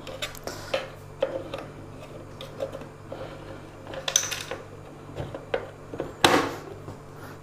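Small clicks, taps and knocks of plastic and metal parts being handled as a mixer grinder's base is put back together after fitting a new overload switch, with two louder brief noises about four and six seconds in. A faint steady low hum runs underneath.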